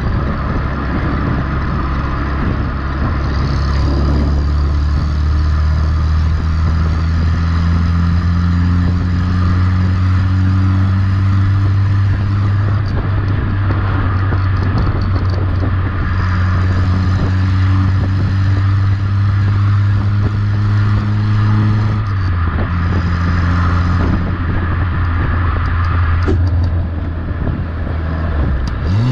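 Renault Super 5 GTS four-cylinder engine heard from behind the car through its exhaust, with the intermediate silencer removed and replaced by a plain tube. The engine note rises slowly as the car pulls, then drops about two-thirds of the way through, the way it does at a gear change.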